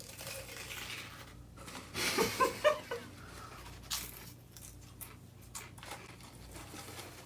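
Pringles potato crisps being bitten and chewed, scattered crunches, with a louder cluster of sound about two seconds in.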